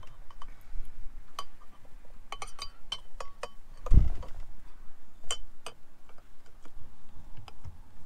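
Light clicks and metallic clinks of an aluminum paddle-shifter cover being handled and pressed onto a car's steering-wheel paddle shifter, with one louder dull thump about four seconds in.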